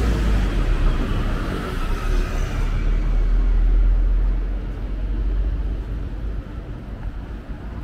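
Street traffic: a vehicle passes close by in the first couple of seconds, its sound falling slightly in pitch and fading away, over a steady low traffic rumble.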